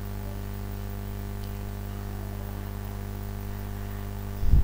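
Steady electrical mains hum, with a brief low thump near the end.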